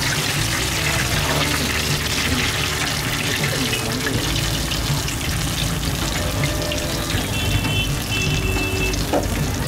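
Spiral-cut potato on a skewer deep-frying in hot oil: a steady, busy sizzle and bubbling of the oil.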